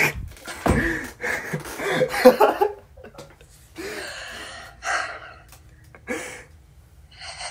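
A young woman laughing helplessly: a sharp gasp at the start, then bursts of laughter broken by gasping, wheezing breaths, with another short burst near the end.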